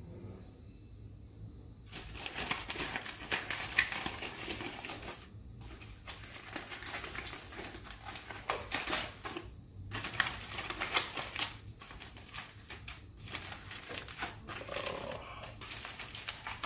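Aluminium foil crinkling and crackling as hands peel open a foil-wrapped parcel, in irregular bursts with a few short pauses, starting about two seconds in.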